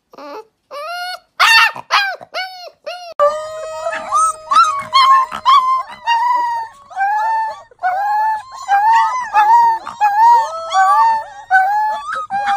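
Husky puppies howling: a few short rising yips first, then a run of high, wavering howls over one long held note that slowly falls and fades about halfway through.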